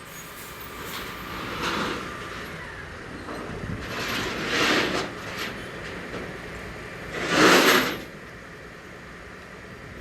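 Newly delivered excavator running, with a steady low hum under three swelling noisy rushes that each last under a second; the third, near the end, is the loudest.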